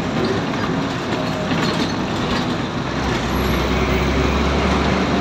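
City bus running, heard from inside the cabin: steady engine and road noise with a low engine rumble that swells from about three seconds in, and a few light knocks and rattles.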